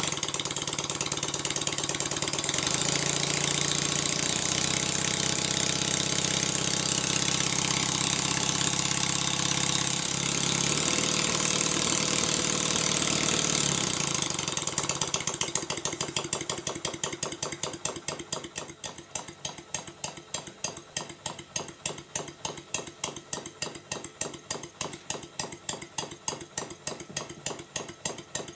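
Stuart Sirius model steam engine running on compressed air, with loud hissing from the exhaust. About 14 seconds in the hiss falls away and the engine settles into a slower, even beat of exhaust puffs, about three a second.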